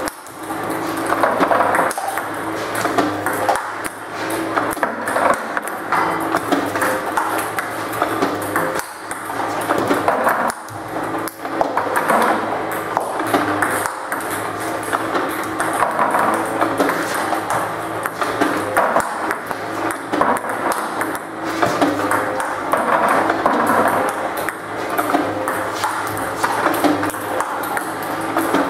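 Table tennis balls fed by an iPong V300 robot and struck back with a paddle: a quick, uneven run of sharp clicks of the ball hitting the paddle and the table. Background music plays throughout.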